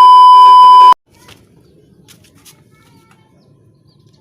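A loud, steady 1 kHz censor bleep lasting about a second, cut off abruptly, over a faint low background.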